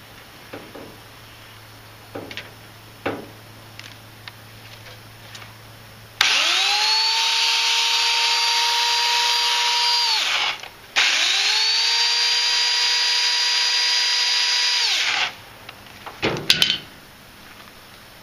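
Remington Limb N Trim 8-amp 14-inch electric chainsaw switched on twice, running with no load for about four seconds each time. Its motor whines up to speed, holds a steady high whine, then drops away as it coasts down.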